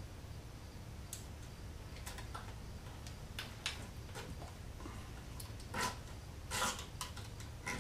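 Light, irregular plastic clicks and ticks as a length of PLA 3D-printer filament is pushed through the holes of a 3D-printed plastic box, with a few louder clicks in the second half.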